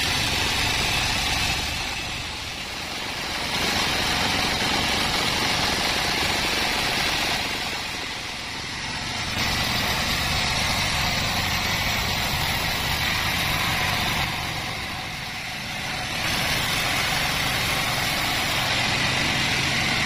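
Band sawmill sawing teak: the band saw runs steadily with a loud, noisy sawing sound as the blade cuts through the wood, easing off briefly three times.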